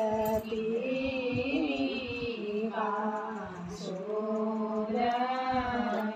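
Women singing shakunakhar, the auspicious Kumaoni songs that open a ritual, in long held notes that glide slowly like a chant.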